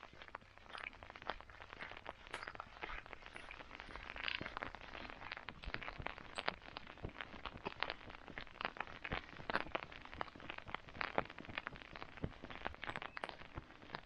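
Footsteps crunching on a wet gravel and dirt road: a dense run of short, irregular crunches and clicks.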